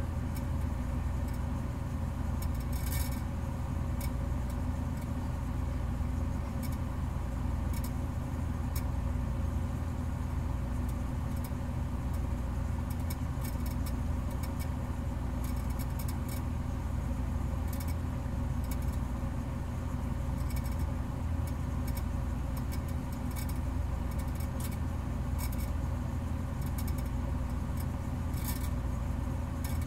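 A steady low mechanical rumble with faint clicks scattered through it.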